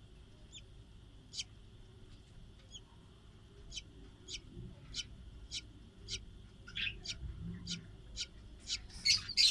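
Budgerigars chirping in short, sharp high calls. The calls are sparse at first, then come about two a second, and turn into a louder burst of chatter near the end.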